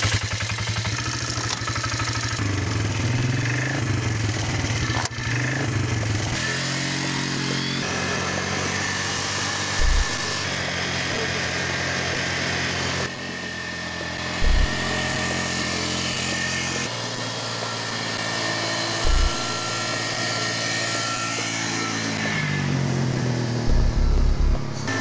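Polaris ATV engine running as it is ridden, its pitch rising and falling as it revs up and eases off. A few brief, loud low thumps break in, and the sound changes abruptly several times.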